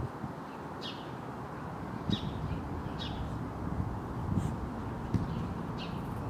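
A small bird repeating short falling chirps, about one a second, over a steady low outdoor background hum.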